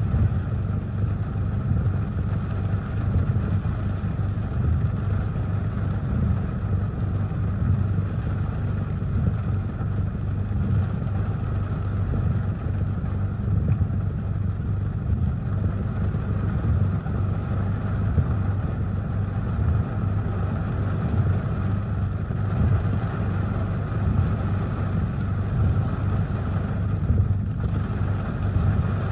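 Heavy rain falling on a car, heard from inside the cabin, with a steady low rumble underneath.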